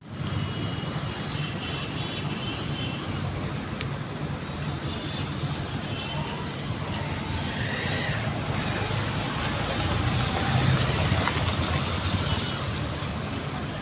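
Caterpillar excavator's diesel engine running steadily, with a low rumble that swells slightly about two-thirds of the way in.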